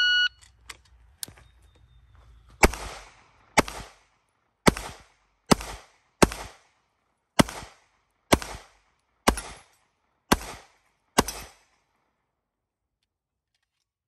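Electronic shot timer beeps once, and after two faint clicks an Atlas Gunworks Athena pistol fires ten shots at roughly one a second, each shot trailing off in a short echo.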